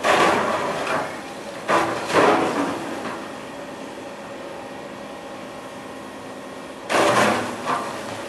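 Excavator bucket breaking into a large packed-snow sculpture: three loud bursts of snow and ice crunching and scraping, at the start, about two seconds in and about seven seconds in, over the steady drone of the excavator's engine.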